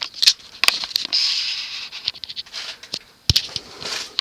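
Handling noise: a run of clicks and scraping rustles, with one sharp knock a little past three seconds in.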